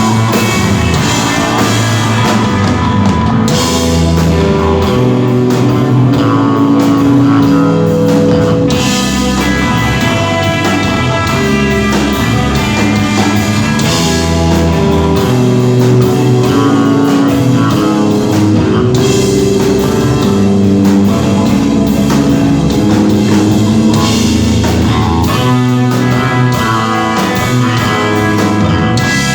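Rock band playing live: electric guitar melody over bass notes and a drum kit with cymbals, instrumental and continuous.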